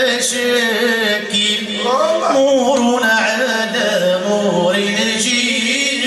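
Men's voices chanting a devotional hymn of blessings on the Prophet, with long melismatic notes that bend and waver in pitch.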